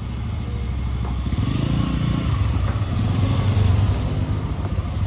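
Motorcycle engine running while riding, with wind and road noise. It grows louder past the middle and eases off near the end.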